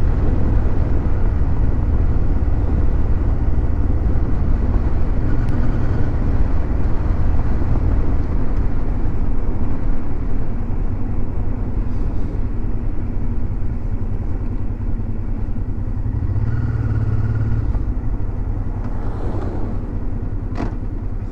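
Motorcycle riding at a steady speed: a constant engine and road rumble, with a single sharp click near the end.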